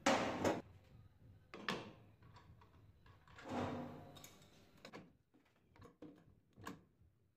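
Metal clunks and scrapes from the steel bracket and rollers of a bench grinder belt sander conversion being handled and fitted on a steel workbench. A loud knock comes at the start and a longer scrape about three and a half seconds in, then lighter clicks of an adjustable wrench on a nut near the end.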